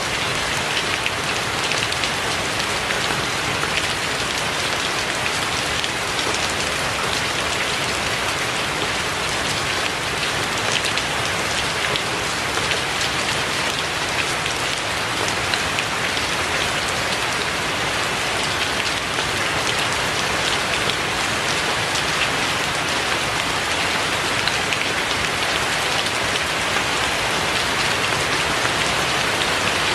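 Steady rain: an even hiss with many small drop ticks in it.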